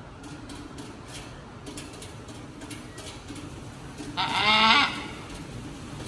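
A South American parrot gives one loud call of about half a second, a little past four seconds in.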